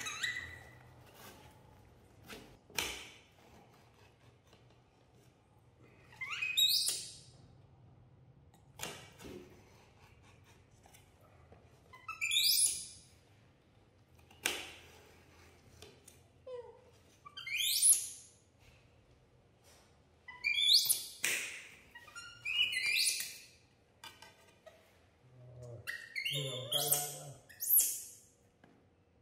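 Baby monkey giving repeated high-pitched squeaks, each a quick sweep, every two to three seconds, with a denser run of them near the end.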